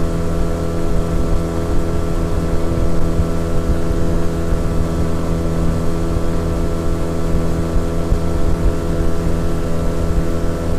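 A 9.9 hp outboard motor running steadily at constant revs, heard from aboard the boat it is driving along, with a steady hiss of water and air rushing past above it.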